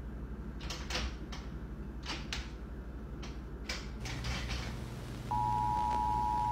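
Clicks and rattles of louvered bifold closet doors being handled. About five seconds in, the Emergency Alert System's two-tone attention signal comes on loud and steady.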